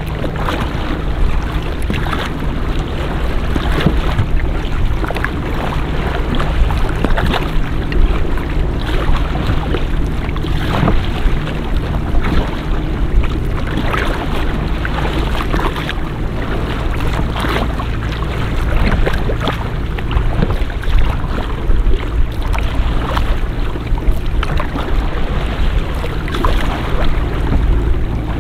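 A kayak's small motor running steadily with a low hum. Paddle strokes splash in the water about once a second while the boat moves along under motor and paddle together.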